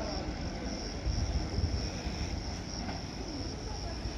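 Low rumble of an ETR 600 Frecciargento high-speed train running away down the track, with a steady, pulsing high-pitched chirr over it.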